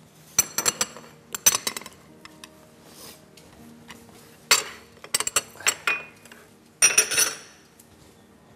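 Kitchenware clattering: utensils and dishes clinking against each other in several short bursts of sharp, ringing knocks.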